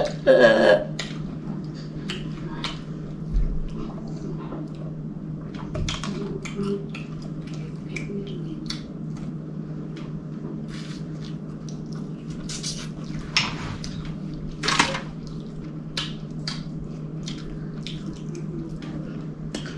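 Loud, messy eating by hand: scattered wet smacks, lip-smacking and clicks of fingers and mouth working food from a foil tray, a few of them louder, over a steady low hum. It opens with the tail end of a laugh.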